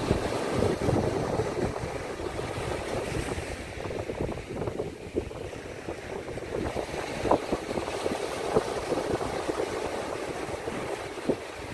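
Small waves washing onto a sandy shore, with wind buffeting the microphone in irregular low gusts.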